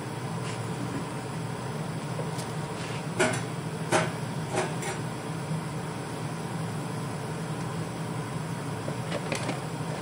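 Steel pieces knocking and clinking as they are handled on a forklift fork carriage: four sharp knocks about three to five seconds in, and two fainter ones near the end, over a steady machine hum.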